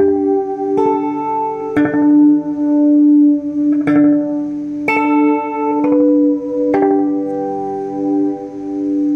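Guitar played through a 1984 Toa EMX-10 echo mixer: single picked notes about a second apart, each ringing on over a held low note. There is a pause of about two seconds after the third note.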